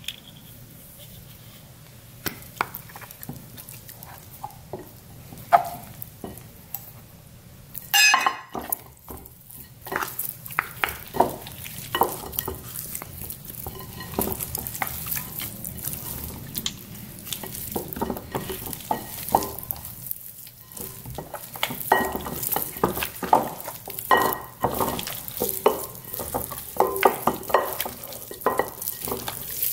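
Hands mixing raw seasoned beef ribs with flour in a glass bowl: wet squishing and slapping of the meat, with irregular clicks and knocks against the glass. Sparse at first, with one sharp knock a few seconds in, then busy and steady from about ten seconds in.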